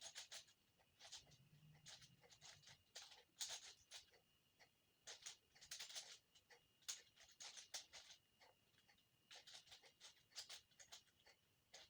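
Faint plastic clicking and clacking of a 5x5 Rubik's cube being turned, in irregular quick runs of turns with short pauses between them. A faint steady high tone sits underneath.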